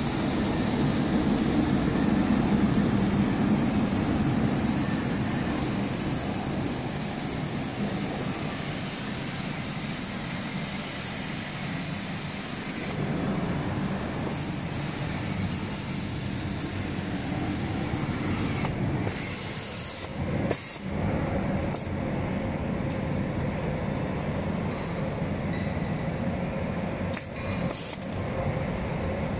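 Edge-cutting overlock sewing machine running on a mattress-topper edge, heard as a steady whir and hiss, a little louder for the first few seconds.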